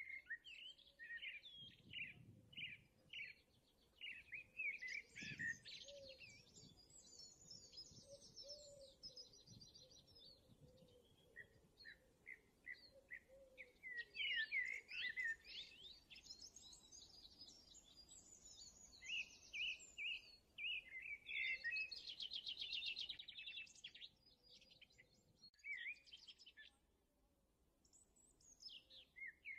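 Birdsong: several songbirds chirping, with short high chirps and rapid trills coming and going, and a quieter spell near the end.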